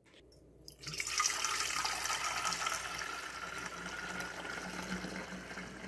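Strained garlic spray being poured from a pot through a stainless steel funnel into a plastic pump sprayer tank: a steady stream of liquid splashing into the funnel and tank, starting about a second in.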